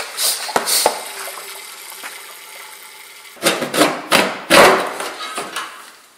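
A hand-pump fluid extractor (Liquivac) pumped a few strokes, then a steady hiss as the last coolant is drawn out of the engine through its hose. From about three and a half seconds in come loud knocks and scrapes as the snowmobile's exhaust pipe is worked loose and lifted off the engine.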